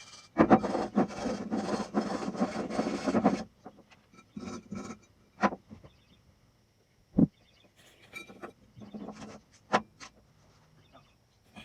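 Rapid scraping strokes on the 350 Chevy crank pulley and harmonic balancer as they are cleaned up by hand, running for about three seconds. After that come a few separate knocks as the parts are handled.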